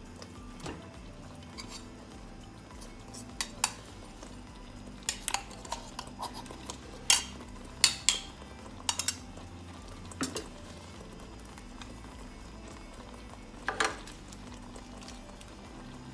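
Kitchen utensils at a pot of thick spinach purée: a spatula stirring and knocking in the pot and a small steel container clinking as peanut powder is tipped in, giving scattered sharp clinks and knocks, the loudest about seven to eight seconds in.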